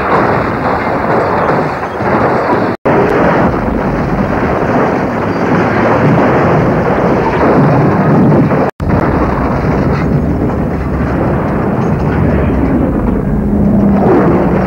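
Movie stunt car crashes: a loud, dense roar of cars slamming, rolling and tumbling. It cuts off abruptly twice, about three and about nine seconds in, and a low steady tone comes in near the end.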